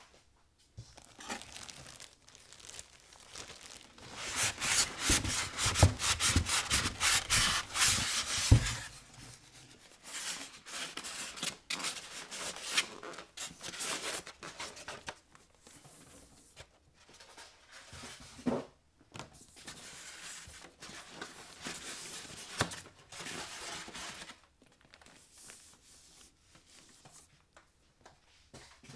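Unpacking noises: plastic wrapping and bags crackling and rustling, with polystyrene foam packing scraping and light knocks. The crackling is loudest and densest for several seconds, then turns into intermittent rustles and bumps.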